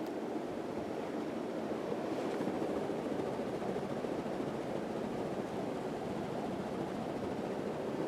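1981 Casablanca Zephyr ceiling fan running steadily, a smooth even whoosh of air from its blades with no wobble or knocking; well balanced and very quiet.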